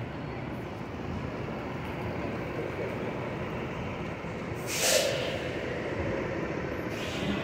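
Steady city street traffic noise, with a short, sharp hiss about five seconds in.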